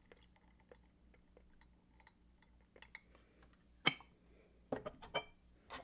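Quiet clinks of porcelain teaware: one sharp clink with a short ring about four seconds in, then a few smaller clicks about a second later, over faint scattered ticks.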